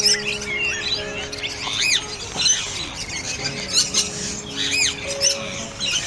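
Background music with sustained notes, overlaid with high, arching bird chirps that repeat every second or two.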